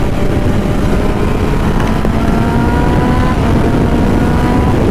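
Kawasaki ZX-10R's inline-four engine pulling hard under acceleration, its pitch climbing steadily as speed rises, over heavy wind rush on the microphone.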